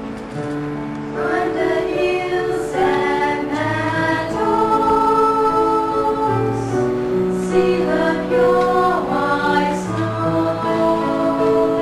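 Church choir singing in parts, with held chords that change every second or so and melodic lines sliding up and down above them.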